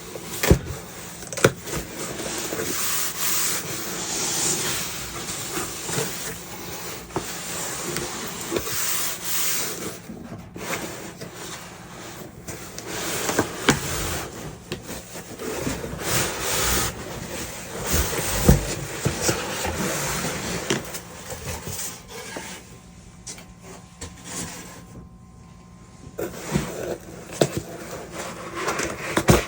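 Packaging being handled and unwrapped: uneven rubbing and rustling with scattered light clicks and taps, quieter for a few seconds near the end.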